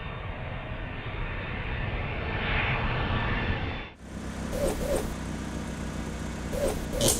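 Jet aircraft engine noise, rising and swelling, then cutting off about four seconds in, followed by a different steady engine noise.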